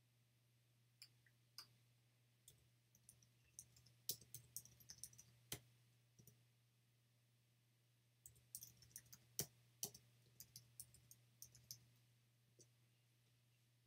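Faint computer keyboard typing in two short spells of quick clicks, the second starting about eight seconds in, over a low steady hum.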